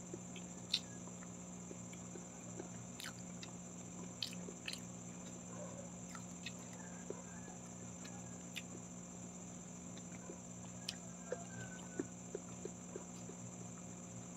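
Close-miked mouth sounds of someone chewing a mouthful of rice and fried milkfish (daing na bangus): soft, scattered wet clicks and smacks, a few sharper ones, over a steady faint background hum.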